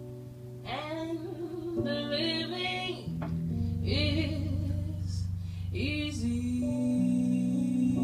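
Live jazz ballad: a vocalist sings short, slow phrases with vibrato over sustained bass notes and held piano chords.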